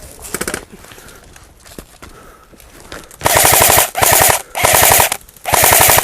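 Airsoft gun firing on full auto: faint rapid rattling at first, then, about three seconds in, four loud short bursts in quick succession, each a fast, even rattle of shots.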